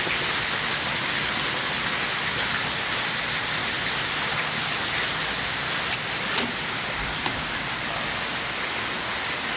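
Heavy rain falling hard: a steady, dense hiss, with a few faint clicks about six seconds in.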